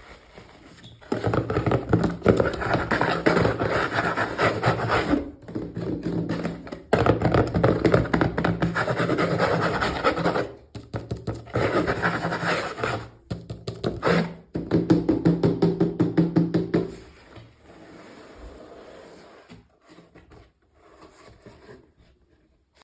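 Packaging crinkling and rustling as a miniature toy is unboxed: dense rapid crackling in bursts of a few seconds, separated by short pauses, then fading to quieter scattered handling for the last few seconds.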